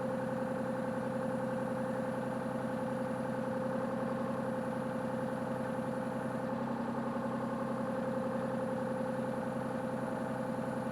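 Excavator diesel engine running steadily, its note shifting slightly about two-thirds of the way through.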